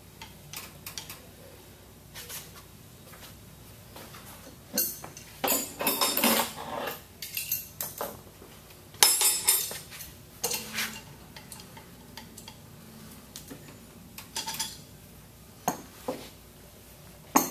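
Wrenches and stainless-steel pump parts clinking and clattering in scattered bursts, as the tools are handled, fitted and set down, with one sharp metallic clank about nine seconds in.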